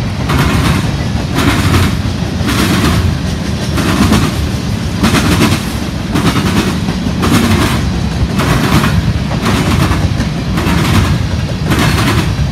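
Freight train of covered hopper cars rolling past close by: a steady heavy rumble of steel wheels on rail, with sharp wheel clacks, often in pairs, about once or twice a second as the car trucks pass over rail joints.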